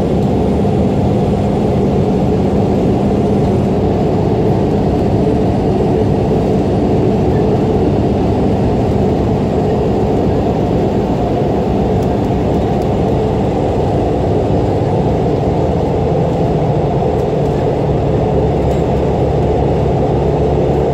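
Cabin noise of a Korail Mugunghwa-ho RDC diesel railcar under way: a steady, loud drone of the underfloor diesel engine and wheels on the rails. The low hum shifts lower about fifteen seconds in.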